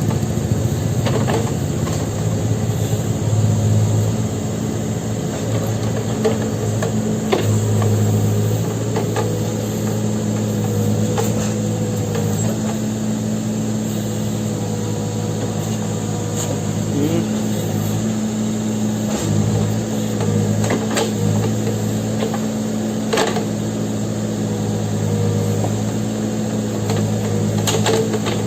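Backhoe loader's diesel engine running steadily, swelling louder at times, with occasional sharp knocks.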